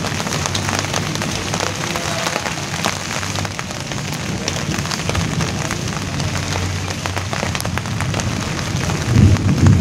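Steady rain falling on a large broad leaf: a constant hiss dotted with many separate drop ticks. A low rumble swells near the end.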